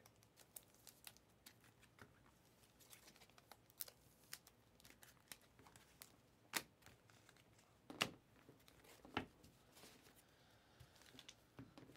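Panini Mosaic trading cards being flipped through by hand, one sliding over the next: faint rustles and soft clicks, with a few sharper card clicks in the second half.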